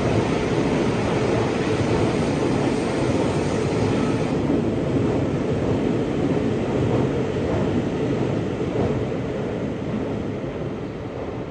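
Seibu 40000 series electric train passing through an underground station without stopping: steady running noise of wheels on rail and traction gear, its high hiss dropping off about four seconds in, then fading as the last car moves away.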